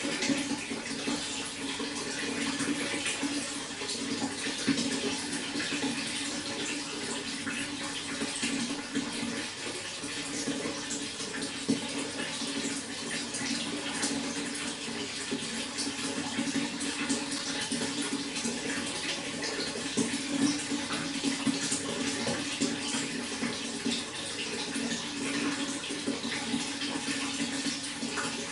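Running water splashing steadily in a continuous pour, with many small splashes.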